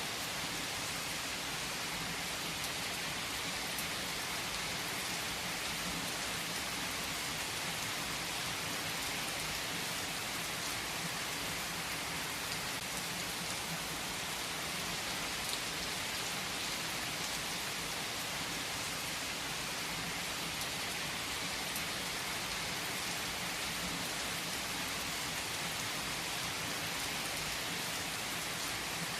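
Steady rain falling in an even, unbroken hiss, with a few faint sparse crackles from a fireplace.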